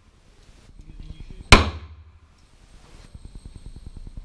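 A 9mm Smith & Wesson M&P Shield pistol firing a single shot about a second and a half in, with a short echo off the concrete range walls. The next shot comes right at the end.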